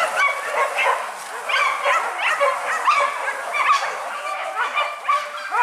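A pack of hunting dogs barking and yelping at once, many short calls overlapping without a break.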